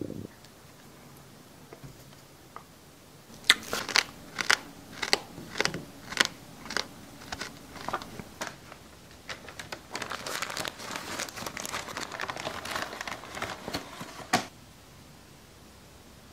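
Plastic packaging crackling and crinkling. A few seconds in come about a dozen sharp crackles, then a few seconds of dense, continuous crinkling that ends in a sharp snap.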